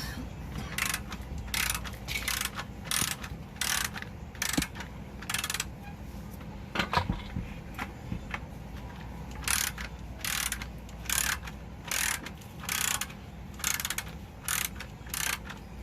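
Hand ratchet wrench working a bolt, a short rasp of clicking with each stroke about every three quarters of a second. It comes in two runs, with a knock in the pause between them.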